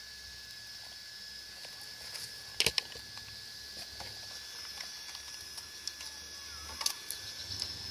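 Faint handling noises of a hand gripping a small RC rock crawler: a few light clicks and knocks, the sharpest about a third of the way in and again near the end, over a faint steady high tone.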